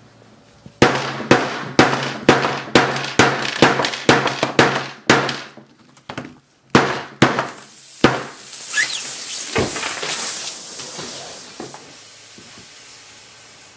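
A hammer beating a Samsung Galaxy S5 smartphone: about ten quick blows at roughly two a second, a short pause, then four more. The punctured lithium-ion battery then vents with a loud hiss and a brief rising whistle, which fades away over the last few seconds.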